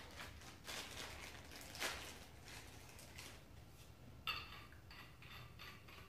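Faint crinkling of clear plastic packaging as small hardware is unwrapped by hand, then a light metallic click a little past four seconds in, followed by a few softer clicks as black iron pipe fittings are handled.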